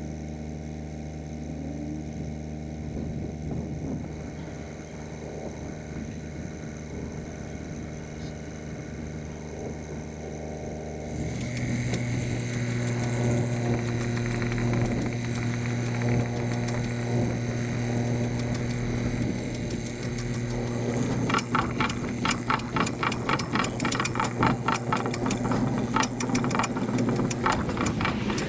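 Ditch Witch mini excavator engine running steadily, then stepping up to a higher, louder throttle about a third of the way in as it pulls the cable back through the old water line. In the last third a fast, regular rattling clatter joins the engine.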